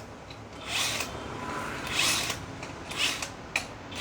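Workshop hand work on a motorcycle: four short bursts of scraping and rattling about a second apart, with a sharp click about three and a half seconds in.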